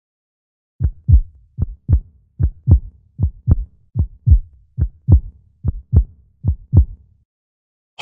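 Heartbeat sound effect at a medium pace: eight low lub-dub double thumps, evenly spaced at about one beat every 0.8 seconds, starting just under a second in.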